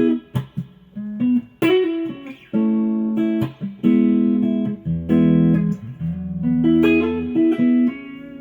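Electric guitar riffing: a Fender Road Worn 50s Stratocaster with a Custom Shop '54 single-coil pickup, played through a Fender Blues Junior amp. Short picked notes and double stops, then chords held for a second or so in the middle, ending on a note left to ring out.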